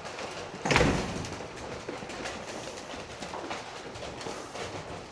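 Goats' and sheep's hooves clattering and shuffling as the herd walks into the barn, with one loud knock about a second in.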